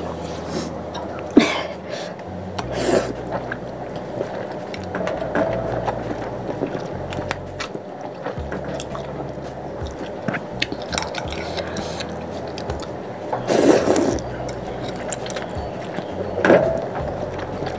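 A person slurping spicy luosifen rice noodles and broth from a bowl, with chewing between slurps; a handful of short slurps, the longest and loudest about fourteen seconds in.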